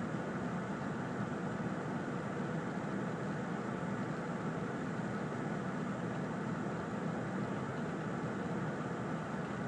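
Car engine idling steadily, heard from inside the cabin while the car sits stopped in traffic.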